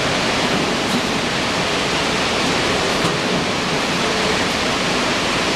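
Steady, even rushing noise of the machinery at an open-mouth 50 kg bag filling scale, with no distinct knocks or rhythm.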